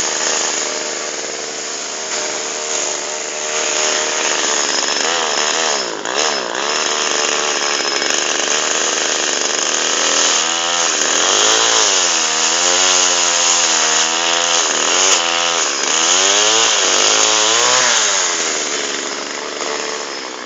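Mac (McCulloch) chainsaw running at high speed while cutting into a tree, its engine pitch rising and dipping over and over in the second half. The saw eases off near the end.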